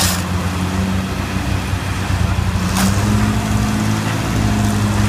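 Engine of a truck-mounted foundation auger drill rig running steadily, its pitch stepping up slightly about three seconds in. Two short scrapes of a shovel digging into loose spoil, at the start and about three seconds in.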